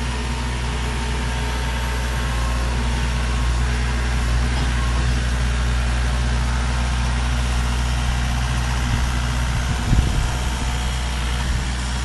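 Compact diesel tractor engine running steadily, with a brief knock about ten seconds in.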